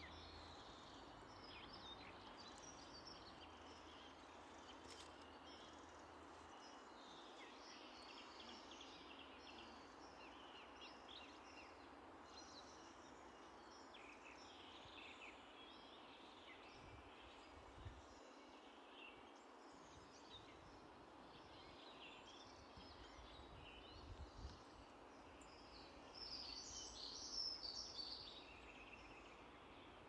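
Faint outdoor ambience with small birds chirping and singing throughout, the birdsong a little louder near the end.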